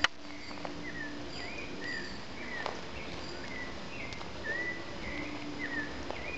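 A bird chirping over and over, short bent notes about two a second. A sharp click right at the start.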